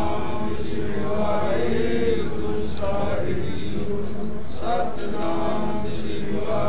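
Sikh devotional chanting: voices singing a short phrase over and over, a new phrase starting about every two seconds.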